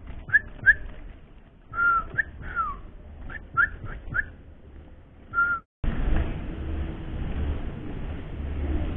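A small cage bird giving about nine short chirps, some rising and some falling, spaced irregularly over five seconds. After a brief break the chirps stop and a steady low noise takes over.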